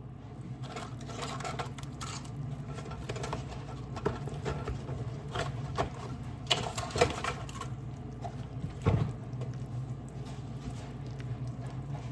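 Irregular clicks, taps and scrapes of kitchen utensils against a mixing bowl, with a few sharper knocks, over a steady low hum.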